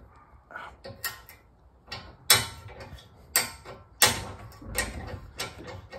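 Helicoil tap cutting threads in a steel bolt hole, turned by a T-handle tap wrench: a string of irregular sharp clicks and creaks as the tap bites and is worked back and forth to break off the chips. The two loudest clicks come a little over two seconds and about four seconds in.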